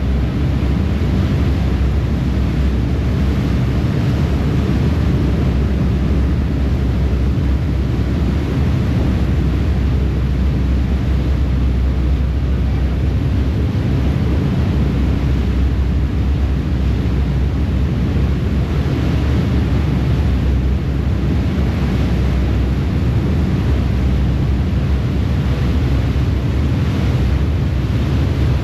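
Harbour ferry underway: a steady low rumble of its engines and propeller wash under the churning wake, with wind buffeting the microphone on the open stern deck.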